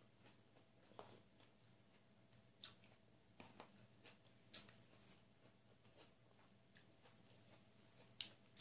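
Faint, scattered clicks and smacks of someone eating with their hands: chewing, and a sharper crack near the end as grilled chicken is pulled apart.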